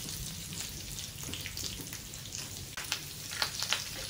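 Hot oil sizzling steadily in a frying pan as a tadka of mustard seeds, chana and urad dal, dried red chilies and curry leaves fries, with scattered crackles and a few sharper pops about three seconds in.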